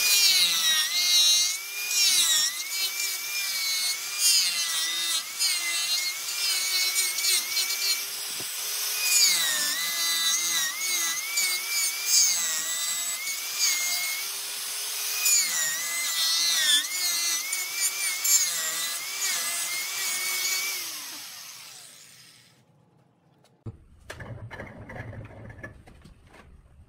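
Hand-held angle grinder with a sanding disc sanding a spinning wooden vase on a lathe: a steady motor whine that dips in pitch each time the disc is pressed into the wood, over the hiss of abrasive on wood. After about twenty seconds the grinder winds down, and fainter irregular noises follow.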